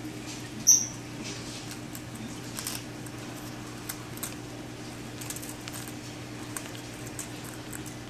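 Black-headed caique nibbling a graham cracker held in its foot: a scatter of small crisp crunches and beak clicks, with one brief, sharp, high-pitched sound just under a second in, over a steady low hum.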